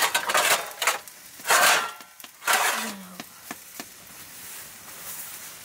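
Scraping and clicking of a small pot being worked by hand: a few sharp clicks at first, two louder scraping rushes about a second and a half and two and a half seconds in, then a faint steady hiss.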